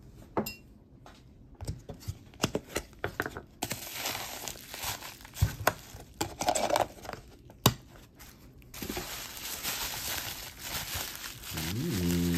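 Jewelry packing wrap crinkling and rustling as a wrapped piece is unwrapped, with sharp clicks and light clinks of jewelry handled among it.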